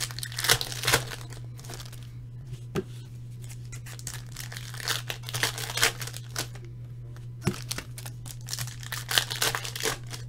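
Trading-card pack wrapper being torn open and crinkled in the hands: a run of irregular crackles and tearing sounds. A steady low hum sits underneath.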